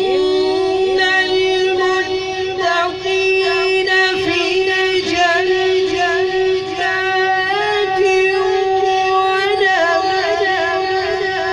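A young man's voice reciting the Quran in melodic tajwid style, holding one long note with wavering ornamental turns.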